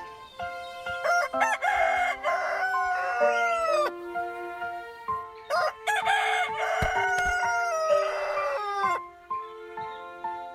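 A rooster crowing twice, each crow a few seconds long and falling in pitch at its end, over soft background music with held notes.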